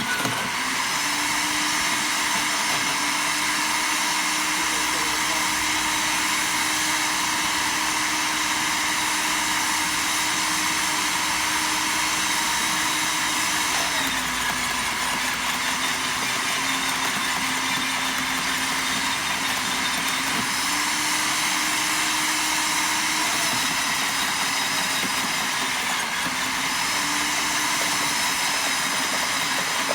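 Sun Joe CJ603E 15-amp electric wood chipper running steadily with a high hiss. Its motor pitch drops twice, about halfway through and near the end, then comes back up, as branches are fed in.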